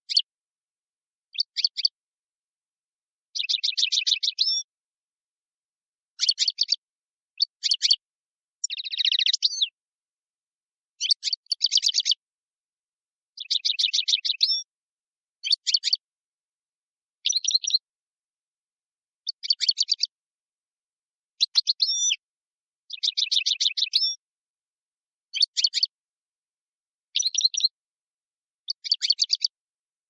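Caged finch singing a string of short, rapid trilled phrases, high-pitched, about one every two seconds with silence between them.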